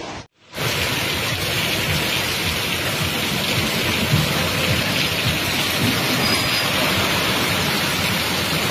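Heavy rain pouring down steadily on a street, a dense even hiss. It cuts in after a momentary silence at the very start.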